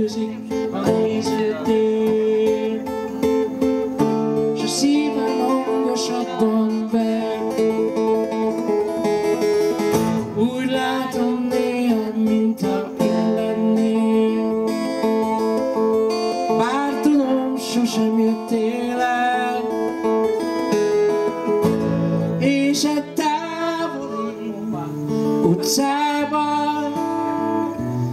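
Acoustic guitar accompanying a song played live, with some singing over it at times.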